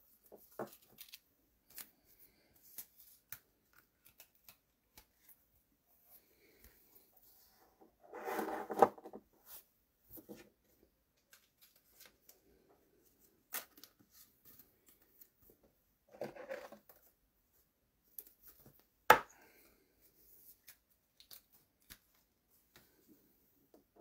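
Trading cards and packs being handled: faint clicks and ticks of cards sliding against each other, two short louder rustles about a third and two-thirds of the way in, and one sharp click a little later.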